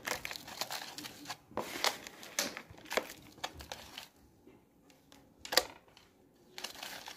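Hands scooping and pressing soil mixed with animal manure into a cut-down plastic bottle pot. A series of irregular short rustles and scrapes, with one sharper stroke a little past the middle.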